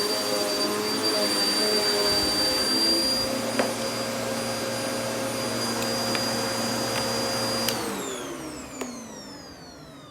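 Vacuum cleaner running steadily with a high whine and a sharp tick about three and a half seconds in, then a click near the end as it is switched off and the motor's whine falls away as it spins down.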